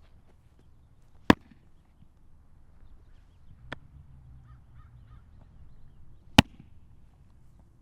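A baseball smacking into a leather glove in a game of catch, three sharp pops a couple of seconds apart, the middle one softer, over faint outdoor ambience.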